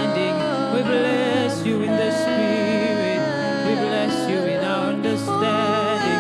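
Two women singing spontaneous gospel worship into microphones, with long, wavering held notes. Underneath are sustained accompaniment chords that change every second or two.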